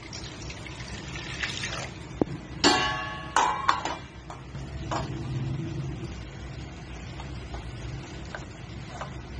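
Water pouring into a metal cooking pan, then a metal steamer knocking against the pot. It gives a few clanks with a metallic ring about three seconds in, the loudest sounds, followed by lighter knocks.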